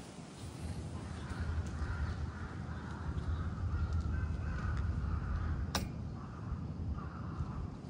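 A bird calling with harsh, drawn-out calls over a steady low rumble. There is a single sharp click about six seconds in.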